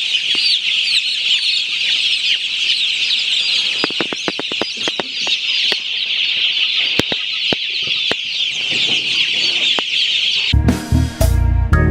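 A large flock of broiler chicks peeping together: a dense, continuous chorus of many overlapping high cheeps. Music with a beat comes back near the end.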